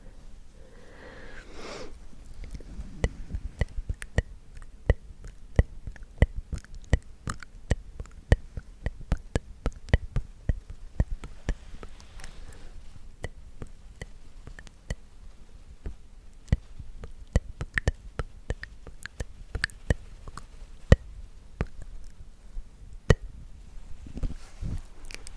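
Close-up ASMR mouth sounds: a quick, irregular run of wet clicks and smacks from lips and tongue, with a breathy sound about a second in.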